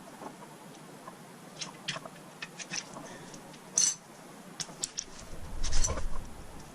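Scattered light clicks and taps of tools and parts being handled, with a sharper click about four seconds in and a heavier knock near the end.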